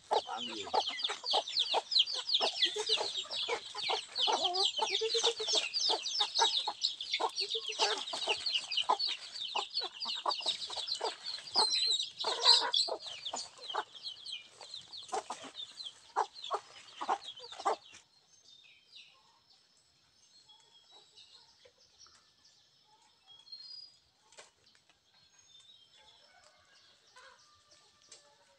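A flock of young chickens and hens feeding, with dense, continuous high peeping over lower clucks. It stops abruptly about two-thirds of the way through, leaving only faint scattered chirps.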